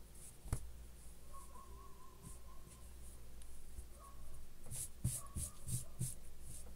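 Fabric pieces being handled and rubbed by hand on a sewing table, with a sharp tap about half a second in and about five quick brushing strokes near the end as the cloth is smoothed flat. A low steady hum sits underneath.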